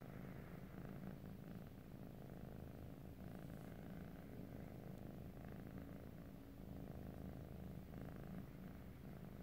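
Domestic cat purring steadily and quietly, a low continuous purr that swells and eases with its breathing.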